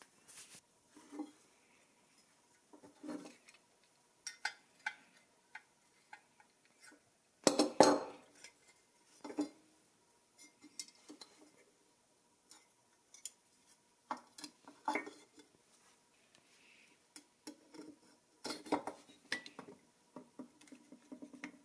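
Small painted steel toy snow plow parts clinking and knocking as they are handled and set down on a wooden workbench: a scattered series of light metallic clicks and taps, the loudest about eight seconds in.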